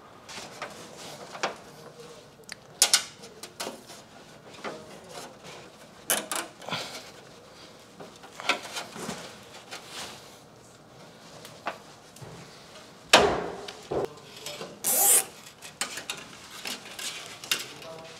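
Electrical cables being handled and pulled through a metal distribution board: scattered rubbing, scraping and small clicks, with a couple of louder scrapes about two thirds of the way through.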